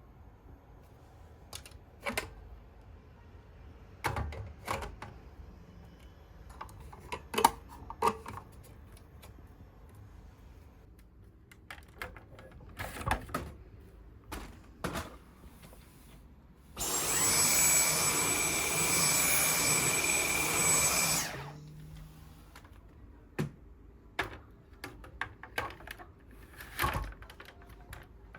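Scattered knocks and clatter of objects being handled. About two-thirds of the way in, a small high-speed electric motor runs for about four seconds with a steady high whine, then stops abruptly.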